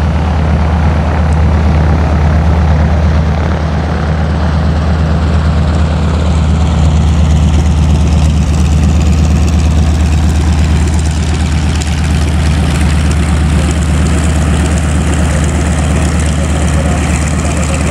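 A formation of about a dozen light helicopters (Robinson R22s and R44s with a Bell 505) approaching, their rotors and engines making a loud, steady drone with a deep low hum.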